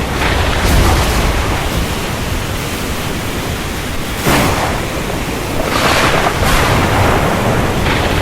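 Heavy rainstorm ambience: a steady, dense rush of rain with several brief louder surges, the sharpest about four seconds in.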